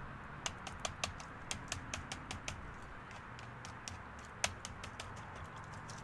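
Twigs and sticks handled close to the microphone, making irregular sharp clicks and taps, many in the first half and fewer later, with one louder snap about four and a half seconds in, over a steady hiss.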